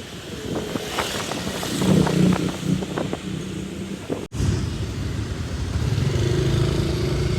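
Motorbike engine running on the move, with wind and road noise; the engine hum drops out briefly about four seconds in, then carries on at a slightly lower pitch.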